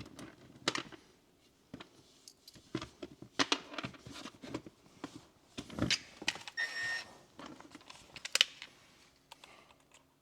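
Scattered light clicks and knocks of small hardware and tools being handled, with a brief high squeak about two-thirds of the way through.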